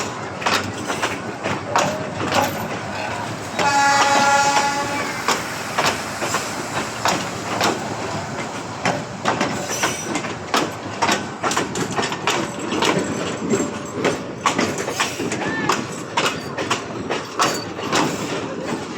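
Train running, with short clacks repeating throughout. A horn sounds once for about a second and a half, about four seconds in.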